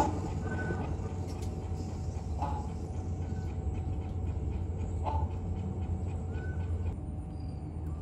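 Aviary ambience: a steady low rumble with faint short bird calls, about three of them spaced roughly three seconds apart.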